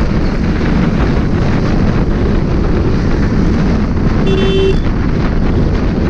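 Wind noise on the microphone of a moving two-wheeler, mixed with the steady rumble of its engine and road traffic. About four seconds in, a vehicle horn beeps once for about half a second.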